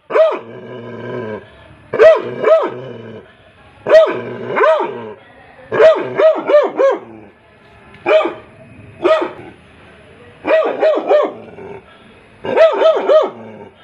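Labrador retriever barking repeatedly, in quick runs of two to four loud barks with short pauses between them.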